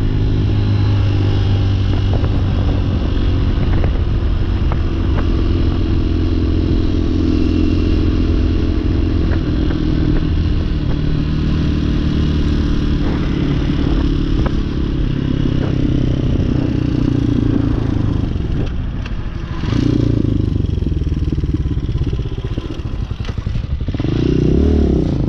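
Hawk 250 dual-sport motorcycle's single-cylinder four-stroke engine running under way, with a steady engine note. The note drops and the sound gets quieter for a few seconds late on as the bike slows to turn, then picks up again near the end.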